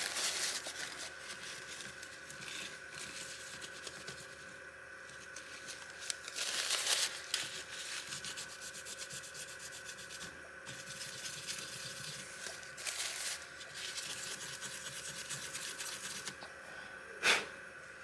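Tissue paper damp with isopropyl alcohol rubbing old thermal paste off a laptop CPU, a papery scrubbing that comes in spells. One sharp knock near the end.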